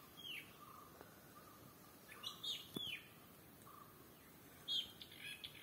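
Small birds calling faintly in the tree canopy: short high chirps that sweep downward, in three brief bouts about two seconds apart.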